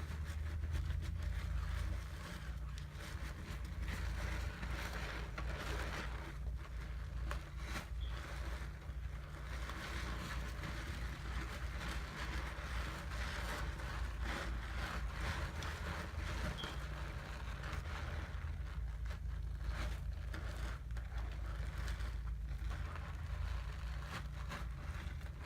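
Wet lathering of a bar of Irish Spring soap with a loofah: continuous squishing and scrubbing of foam, with a low rumble underneath.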